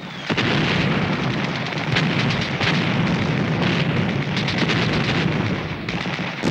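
Heavy artillery barrage: big guns firing in a dense, continuous rumble of blasts, starting about a third of a second in, with sharper reports standing out now and then.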